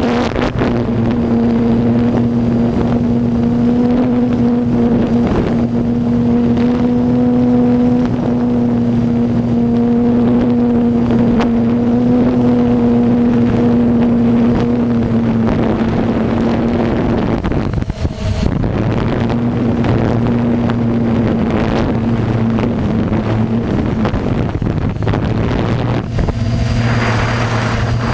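Heavy diesel corn-harvest machinery running at a steady pitch with a constant drone. It dips briefly about two-thirds of the way through, and a louder rushing hiss joins near the end.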